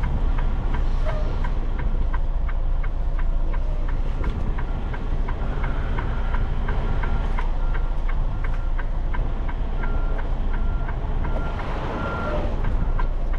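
Backup alarm beeping over and over, short high beeps, over the steady low rumble of a heavy diesel truck engine manoeuvring at low speed.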